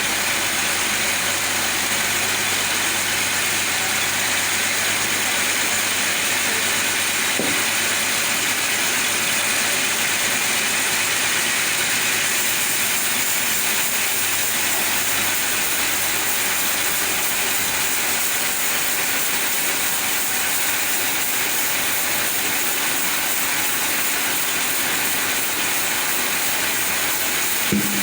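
Chainsaw held at steady high throttle, cutting lengthwise through a sapodilla log. It gives a constant, even noise of chain and chips with no pauses.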